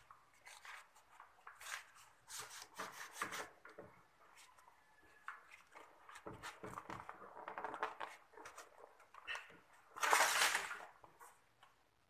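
Rustling and crinkling of air-conditioner refrigerant pipes, foam insulation and hose being handled and bundled by hand, in many short irregular strokes. A louder rasp lasting under a second comes about ten seconds in.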